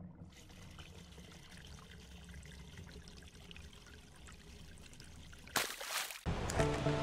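Faint running water trickling steadily, with a short loud rush of noise about five and a half seconds in; music starts near the end.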